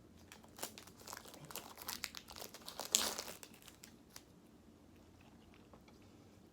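Plastic soda bottle crinkling and crackling as it is handled, in a run of irregular crackles lasting about four seconds, loudest about three seconds in.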